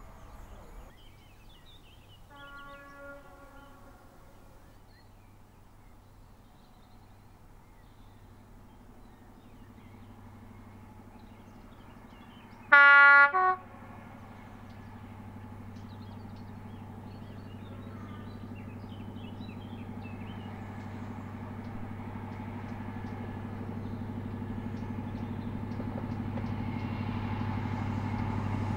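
InterCity 125 (HST) power car sounding its two-tone horn: a faint blast a few seconds in, then a loud high-then-low blast about halfway through. After it the power car's diesel engine drone grows steadily louder as the train approaches.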